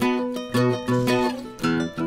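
Background music played on plucked strings, a quick run of picked notes in a steady rhythm.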